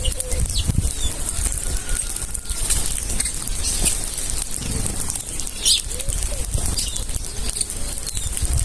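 A flock of feeding birds: wings flapping and fluttering in a dense crackle, with a few short chirps, over a steady high hiss.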